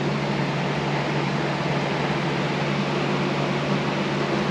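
Steady fan noise: an even rushing hiss over a constant low hum, with no change in level.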